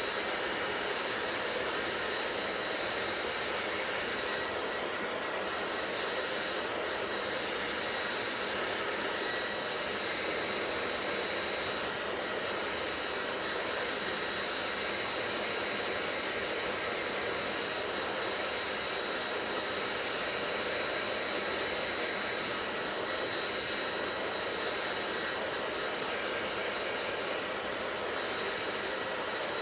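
Hair dryer running steadily: a continuous blowing rush of air with a faint high whine from the motor.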